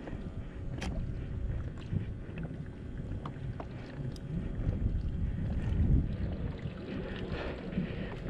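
Water slapping against a plastic sit-on-top kayak's hull, with a low rumble of wind on the microphone and a few sharp clicks from the rod and reel being worked.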